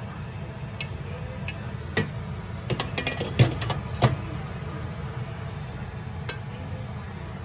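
Glass pot lid clinking and knocking against the pan as it is lifted off and set aside: a quick run of sharp clinks between about two and four seconds in, the loudest two near the end of that run. A steady low hum sits underneath.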